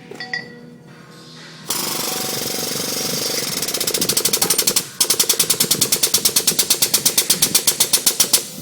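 Air-over-hydraulic foot-pedal pump working a hydraulic post vise as its jaws crush a 1.25 inch steel pipe. The pump starts with a loud hiss about two seconds in, settles into a rapid pneumatic chatter of about nine strokes a second, breaks off for a moment, then chatters on to the end.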